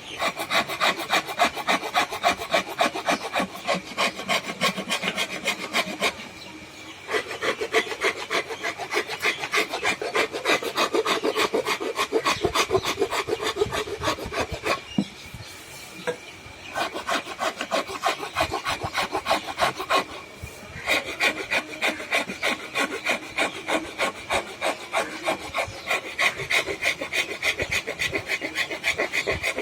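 Wood being rasped by hand: quick back-and-forth scraping strokes, several a second, in runs with short pauses between them.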